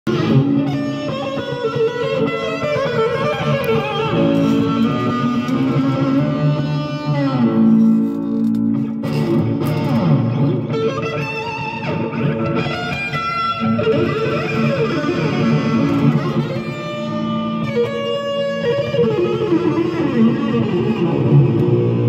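Four-string bağlama, a long-necked Turkish lute, played solo as a free improvisation: quick runs of plucked notes.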